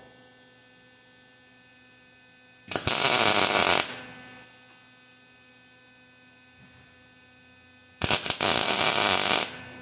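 Electric arc welder striking two short tack welds on a steel timing chain, each a crackling arc of about a second to a second and a half, the first about three seconds in and the second near the end, over a steady electrical hum.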